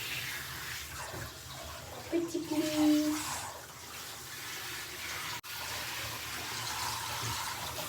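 Bathwater running and splashing steadily in a bathtub during a puppy's wash. About two seconds in there is a short pitched vocal sound lasting about a second.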